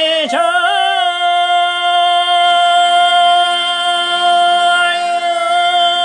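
Male singer holding one long, high sung note on the closing 'oh' of a Chinese folk-song line, steady with almost no vibrato after a brief slide into it about a third of a second in.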